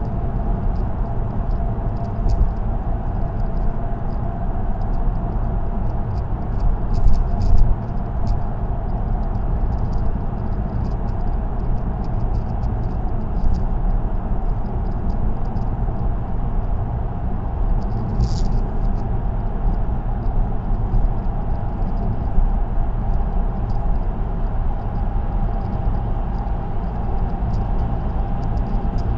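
Steady road noise inside a car cruising on an expressway: a continuous low rumble of tyres and engine with a steady hum. Light ticks and rattles run throughout, and a brief high squeak comes about 18 seconds in.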